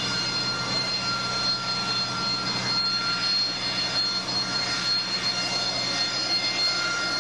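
AV-8B Harrier's Rolls-Royce Pegasus turbofan running at high power through a vertical landing: a loud, steady jet rush with a high-pitched whine that settles slightly lower in the first second.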